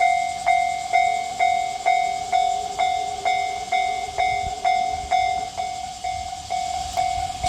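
Japanese railway level-crossing warning bell ringing in a steady rhythm, about two strikes a second, warning of an approaching train. A fainter steady lower tone sounds under it for a few seconds, and near the end a rising rushing hiss comes in as the train draws near.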